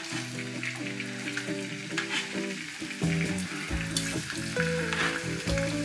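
Bone-in, skinless chicken thighs frying in olive oil in a pan: a steady sizzle with a few sharp crackles, over background music with a melody.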